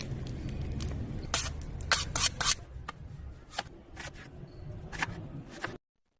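A metal utensil clicking and scraping against cookware as eggs are worked, about eight irregular sharp clicks over a low steady hum; the loudest strikes cluster about two seconds in. The sound cuts off abruptly shortly before the end.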